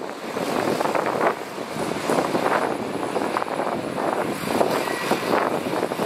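A Komatsu crawler bulldozer's diesel engine running under load, with a steady drone and a rapid, irregular clatter of knocks.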